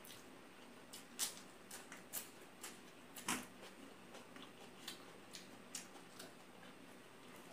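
Mukbang eating sounds: irregular wet clicks and smacks from chewing and from fingers mixing rice and curry on a steel plate, two of them louder, about a second and about three seconds in.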